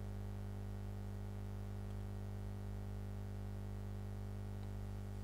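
Steady low electrical hum, buzzy with many overtones, unchanging throughout.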